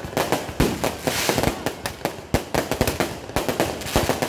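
Fireworks display going off overhead in a rapid, continuous barrage of bangs and crackles, several a second, with a stretch of crackling about a second in.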